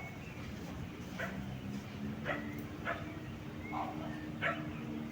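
A dog barking in short, separate barks, about five of them a second or so apart, over a steady low hum.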